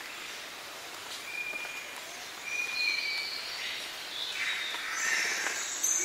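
Highland rainforest morning ambience: birds calling, among them spotted catbirds and Lewin's honeyeaters, over a steady background hiss. Several short whistled notes come in the first half, then a louder, rougher call near the end.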